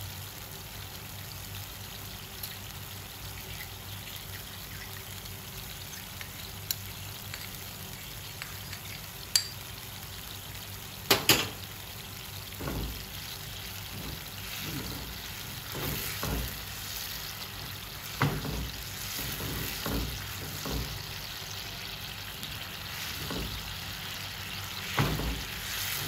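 Diced mushroom sauce simmering with a steady hiss in a non-stick wok. From about halfway a silicone spatula stirs and scrapes through it in short strokes, and a couple of sharp knocks come about eleven seconds in.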